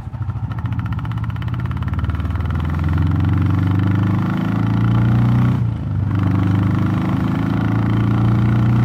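Royal Enfield Classic 350's single-cylinder engine accelerating, its exhaust note rising in pitch, breaking off briefly for a gear change about six seconds in, then climbing again. Breathing through a DNA stage 2 performance air filter, the note is a little more bassy, with a good grunt.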